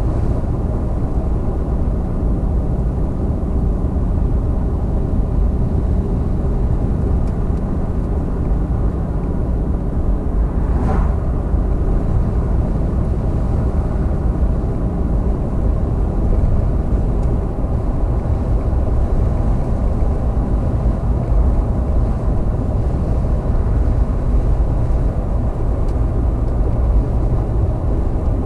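Steady engine and tyre noise of a moving vehicle heard from inside, a dense low rumble. A short higher sound cuts through once, about eleven seconds in.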